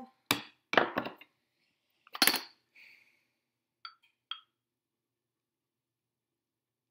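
White ceramic ramekins and a glass measuring jug knocking and clinking as the ramekins are handled and set down on a wooden counter: a few sharp knocks in the first two and a half seconds, the loudest a little after two seconds, then two light ringing clinks about four seconds in.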